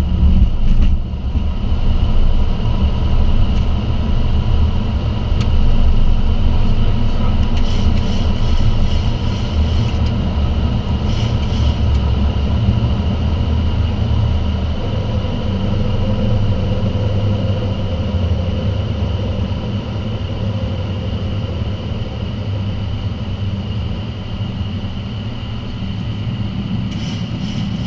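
Boeing 737 cockpit noise through the takeoff roll, liftoff and initial climb: jet engines at takeoff power with a deep steady rumble, rushing air and a steady high whine. The deep rumble lessens about halfway through.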